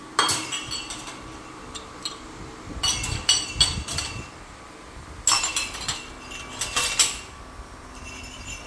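White cups being set upside down into a stainless-steel wire basket in a pull-out kitchen cabinet drawer, clinking against the wires and each other in several short clusters: once at the start, again around three seconds in, and again from about five to seven seconds in.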